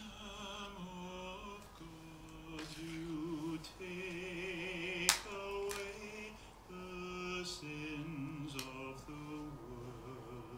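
Slow sung melody with long held notes that waver in pitch, changing note about once a second. A sharp click comes about five seconds in, with a few fainter clicks later.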